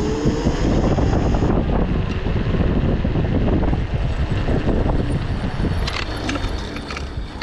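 White Siberia Nerpa off-road vehicle driving, a steady rough rumble with a few sharp knocks about six seconds in.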